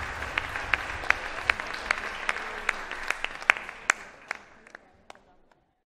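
Audience applause, dense clapping that thins to a few separate claps and dies away about five seconds in.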